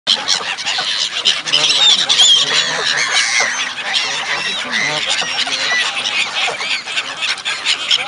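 A mixed flock of gulls and Canada geese calling on the water, with many short calls overlapping in a continuous chorus of high-pitched gull cries and lower goose honks.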